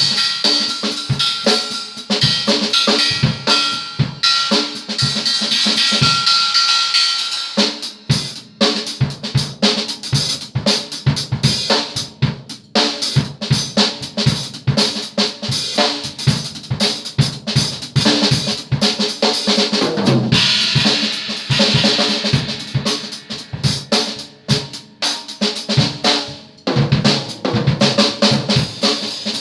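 A drum kit played fast: dense tom, snare and bass drum hits under washing cymbals. A steady ringing tone sits over the drumming for the first several seconds and stops about seven seconds in.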